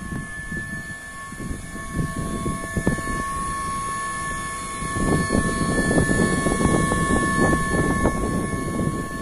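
Electric hydraulic pump motor of a semi-electric walkie pallet stacker running, a steady whine over a rough low rumble that gets louder about five seconds in.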